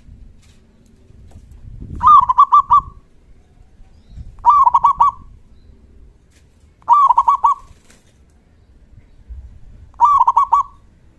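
Zebra dove (perkutut) cooing: four loud phrases of quick repeated coo notes, each under a second long, about two and a half seconds apart.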